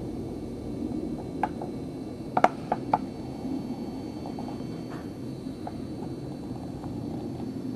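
Steady low rumble of background noise, with a few sharp clicks: one about a second and a half in, then a quick group of three about two and a half to three seconds in, the first of these the loudest. Fainter ticks follow.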